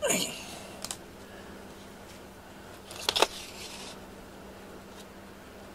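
A fleece blanket rustling as it is draped over a cat, a brief scratchy burst about three seconds in.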